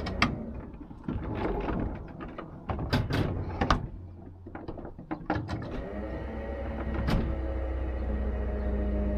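A string of clicks and clunks from door and other mechanisms aboard a metre-gauge electric railcar. A steady low hum sets in about six seconds in.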